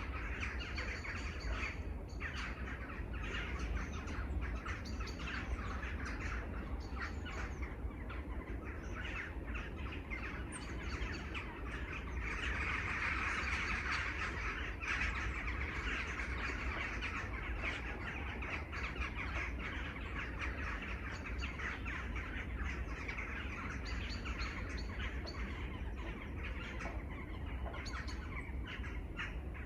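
Many birds chirping together in a dense, continuous chorus of quick, overlapping calls, busiest about halfway through, over a steady low rumble.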